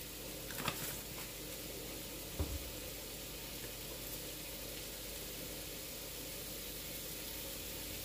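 Ground beef sizzling steadily in a frying pan, with a short sharp click about two-thirds of a second in and a low knock about two and a half seconds in.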